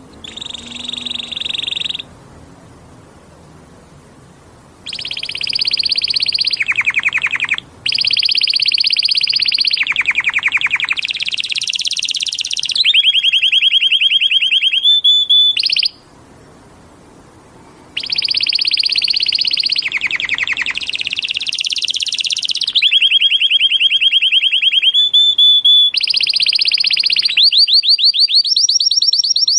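Canary singing a loud, high song of rapid trills and rolls, phrase after phrase, each trill a fast run of repeated notes. It breaks off for a few seconds about two seconds in and again about halfway through, and ends with a run of quick rising notes.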